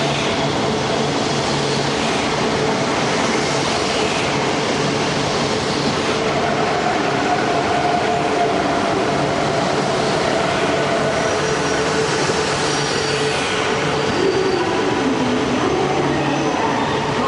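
E4 series Max double-decker Shinkansen rolling slowly past along the platform, giving a steady rolling noise of wheels and running gear with a humming tone. Near the end, as the last car goes by, a tone dips and then rises in pitch.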